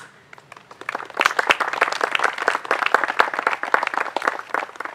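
Audience applauding: many hands clapping, beginning about a second in after a single sharp click and tapering off near the end.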